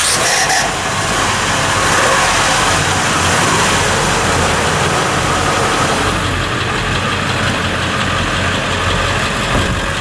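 A 2000 Ford F-150's 4.2 liter V6 engine idling steadily, freshly started.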